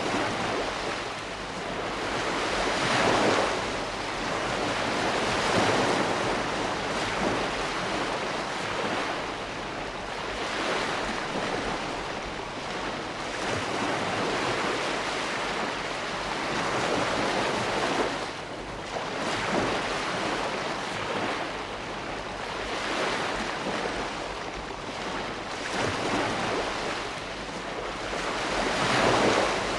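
Ocean waves breaking in steady surf, swelling every few seconds, with the loudest swell near the end.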